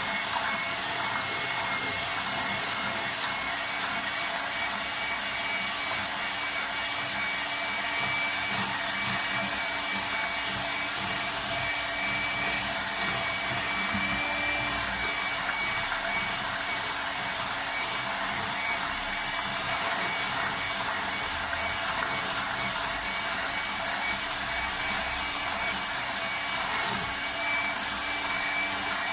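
Electric mixer running steadily with a constant motor whine as it beats cake batter.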